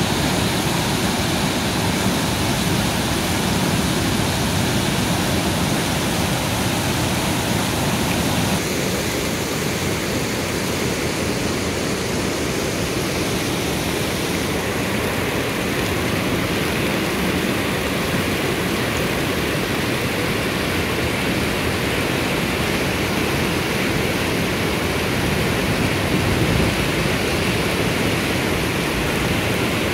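Muddy stream in flood after the first heavy rain, rushing and churning over its bed: a loud, steady rush of turbulent water. Its character shifts slightly about nine seconds in.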